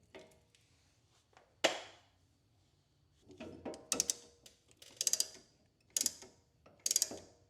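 Old brake pad being worked out of the caliper bracket, metal clinking and rattling: one sharp click a little under two seconds in, then short bursts of metallic clatter about once a second.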